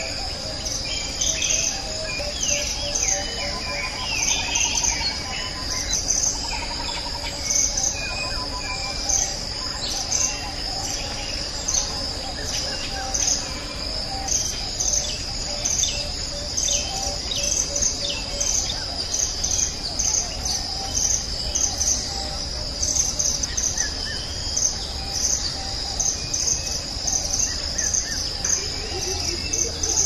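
Steady high-pitched insect chorus with a regular pulsing chirp, with assorted bird calls and trills over it, busier in the first half.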